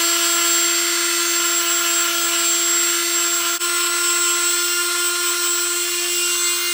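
Electric random orbital sander running at a steady pitch while sanding the edges of a small oak handle block to round them over, with one brief dip about halfway through.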